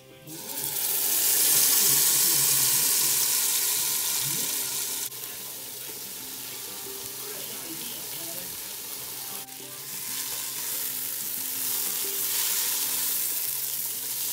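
Ground-spice paste mixed in water poured into hot oil with whole spices, setting off a sudden loud sizzle that slowly eases. The pan keeps sizzling as more ingredients go in and are stirred with a spatula, the sizzle dropping abruptly about five seconds in and rising again later.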